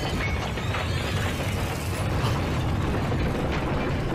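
Steady, dense low rumbling with a clattering, grinding mechanical texture and scattered small clicks: a film sound effect of a cave shaking or its mechanism at work.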